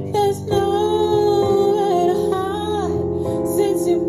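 A woman singing a song into a microphone, holding long notes, over keyboard accompaniment, amplified through PA speakers.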